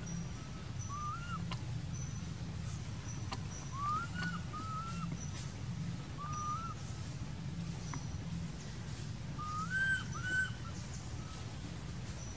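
About six short whistle-like animal calls that rise and then level off, some coming in pairs, the loudest about ten seconds in. Faint high chirps fall between them, over a steady low hum.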